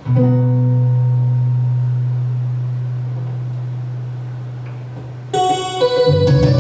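A single low electronic-keyboard note is held and slowly fades for about five seconds; about five seconds in, a full keyboard backing track with many notes starts up.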